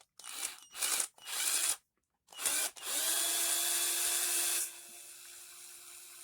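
Small electric screwdriver backing out the case screws of a plastic RC-truck differential: a few short bursts of the motor, then a longer run that spins up about three seconds in as a steady whine and drops to a quieter whine a little later.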